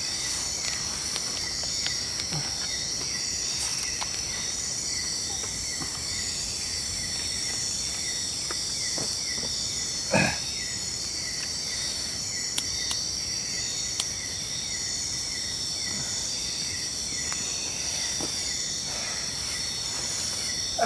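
Night insect chorus of crickets: steady high-pitched trilling with rapid, evenly repeated chirps over it. A single short thump about ten seconds in, and a few faint clicks.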